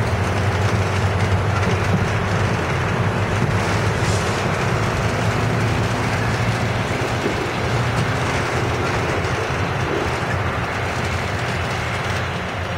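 MARC commuter train rolling slowly past: a steady rumble and rattle of steel wheels on rail and the coaches' running gear, with a constant low hum underneath.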